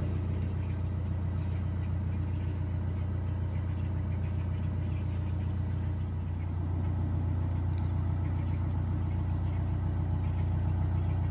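Narrowboat's diesel engine running steadily while under way, an even low drone.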